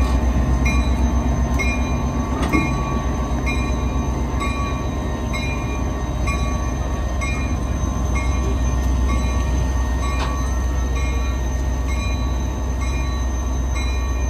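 Diesel-electric locomotive engine idling with a steady low rumble while the locomotive is swung around on a turntable. A high ringing tone repeats about twice a second over it, and there are a couple of short clicks.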